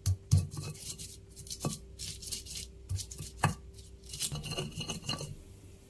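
A stone pestle crushing and grinding shallots and garlic in a rough stone mortar (cobek): irregular knocks of stone on stone with scraping strokes between them.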